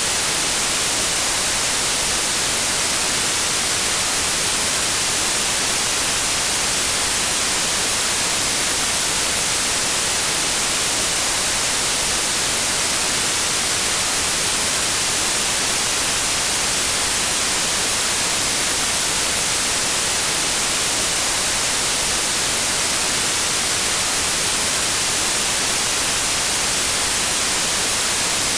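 Steady white noise: an even hiss, loudest in the high frequencies, that does not change.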